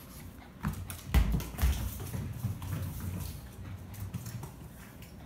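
A small soccer ball thrown along a hardwood floor, thudding down several times. It is followed by a run of light, quick clicks of a Boston terrier puppy's claws on the hardwood as it runs after the ball.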